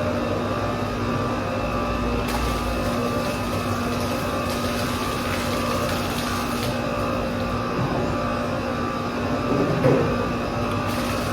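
Steady machinery hum holding several constant tones, with a brief louder sound near the end.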